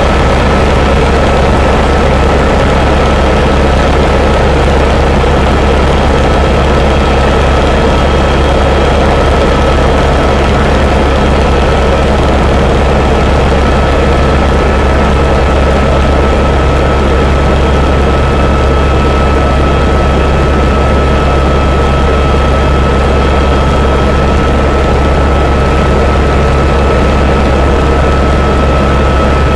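Helicopter in flight heard from inside the cabin: loud, steady rotor and turbine noise, a deep drone with a constant high whine over it.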